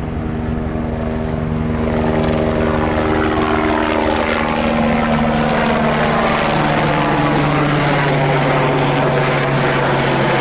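Eurocopter AS350 B3 helicopter, its single Turbomeca Arriel turboshaft and main rotor running at flight power as it departs. The sound grows louder over the first two seconds as it comes closer, then holds steady.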